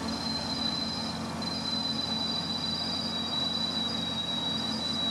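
Helicopter in flight heard from inside the cabin: a steady engine and rotor drone with a constant high whine over it.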